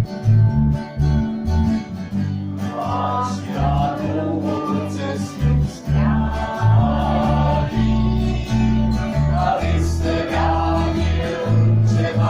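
Live band playing an instrumental break in a folk song: acoustic guitar over a bass line that changes note about every half second.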